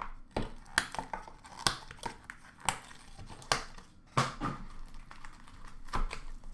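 A cardboard hockey-card box being opened and handled by hand: a string of sharp taps and knocks, with cardboard rustling in between.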